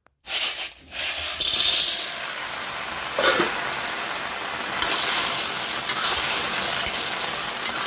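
Snails in their shells sizzling and steaming in a hot iron kadai, with shells and a steel ladle clinking against the pan as they are stirred. There is one sharper metal clink about three seconds in, and the hiss grows louder near the end.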